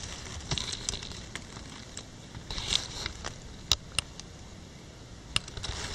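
Irregular crackles, scrapes and a few sharp clicks of dry leaf litter and twigs being brushed and pressed at ground level, over a faint steady hiss.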